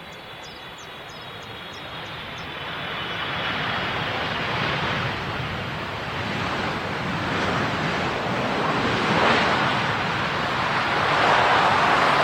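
Jet airliner coming in to land close by, its engine noise growing steadily louder over several seconds and then cutting off suddenly at the end.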